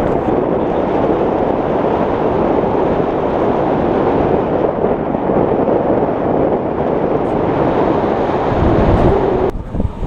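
Loud, steady wind rushing over the microphone, filmed from a moving aerial tramway car; it cuts off abruptly near the end.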